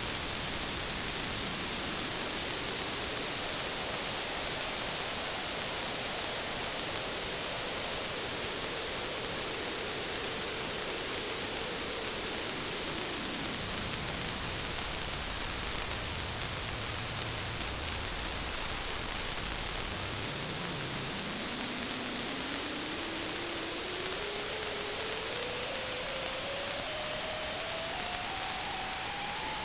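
A steady high-pitched whistle over a constant hiss, with a fainter lower tone that slowly glides down, fades away in the middle, then climbs steadily toward the end.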